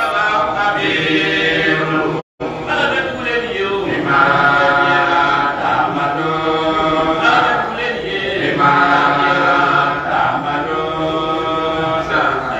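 Male voices chanting an Islamic religious chant into microphones, with long held notes that glide up and down. The sound cuts out completely for a moment about two seconds in.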